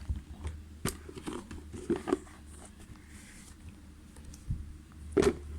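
Handling noise: scattered light clicks and knocks of plastic fidget toys being handled and dropped into a bucket, with a louder knock near the end.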